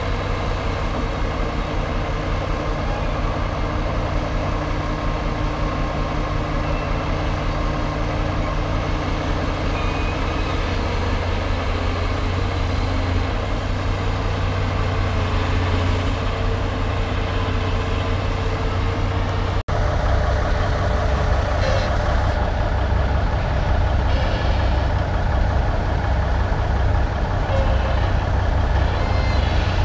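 Heavy diesel engines idling steadily, from the Kenworth logging truck and the Cat log-loading shovel working beside it. The sound drops out for an instant about twenty seconds in and comes back a little louder, with a few faint knocks.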